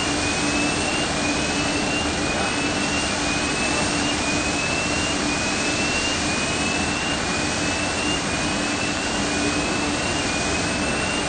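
Steady jet-aircraft noise on an airport apron: a constant hum and rush, with a short rising chirp repeating about once a second.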